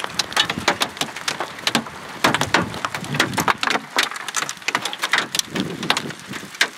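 Hailstones falling and striking: a dense, irregular patter of sharp cracks and taps over a steady hiss of rain.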